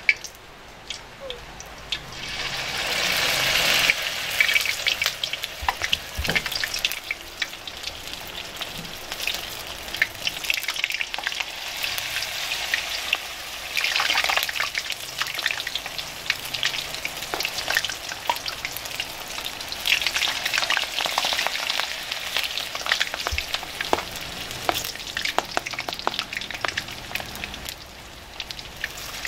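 Instant-noodle snack frying in hot oil: a steady sizzle that swells about two seconds in and surges a few more times, with scattered clicks of a spatula stirring in the pan.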